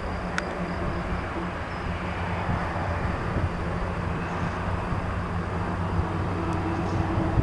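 Air Tractor AT-502 crop-duster's turboprop engine and propeller running at low taxi power, a steady drone that grows a little louder near the end as the plane taxis closer.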